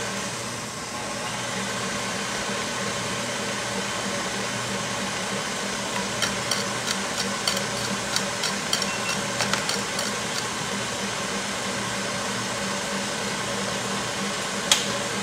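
KitchenAid stand mixer running steadily at medium speed, its wire whisk whipping egg whites with a constant motor whir. A run of light ticks comes between about six and ten seconds in, and one sharp click near the end.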